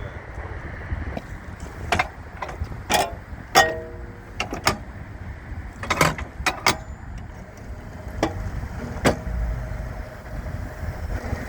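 Scattered metallic clanks and knocks, about eight of them, several ringing briefly like struck steel, over a low steady rumble.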